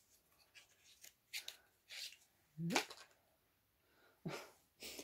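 Faint rustling, taps and clicks of hands handling a small cardboard eyeliner box and its packaging, with a brief rising sound a little past halfway.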